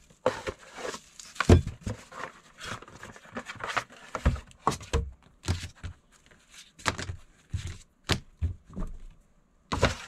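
Unboxing handling noise: a cardboard box being handled and parts in bubble wrap and plastic bags set down on a table, with irregular knocks, thuds and plastic rustling, the loudest thump about a second and a half in.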